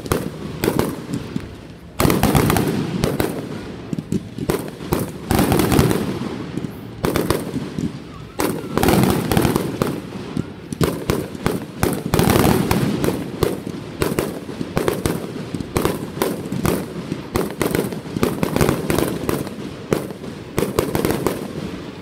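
Aerial fireworks going off in a continuous barrage: loud bangs from shell bursts every few seconds, with dense crackling and popping between them. A sharp burst comes about two seconds in.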